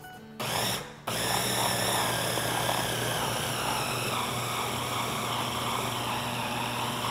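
Ninja food chopper's motor blending flour, cornflour and water into a batter: a brief pulse about half a second in, then a steady run.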